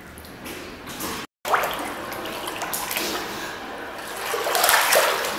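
Water splashing and sloshing in a pool as seal pups swim in it. The sound cuts out for a moment about a second in and swells louder near the end.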